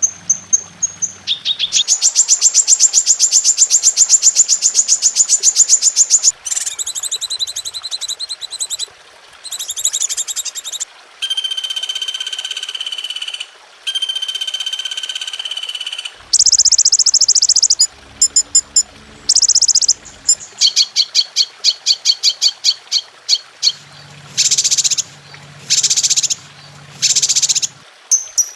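Recorded songbird calls from a bird-tutoring 'masteran' compilation, one type after another with abrupt changes. A long rapid trill comes first, then shorter trills, two long steady whistled notes, and a run of short, quickly repeated calls near the end.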